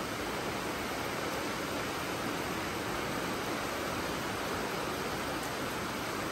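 Steady rain falling, an even hiss with no breaks or separate drops standing out.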